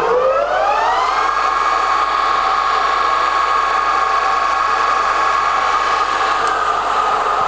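JFMT J1-530 gap bed lathe headstock spinning up to its top speed of 1500 rpm: a rising whine that levels off about a second in, then a steady high whine with many overtones as the spindle runs at full speed.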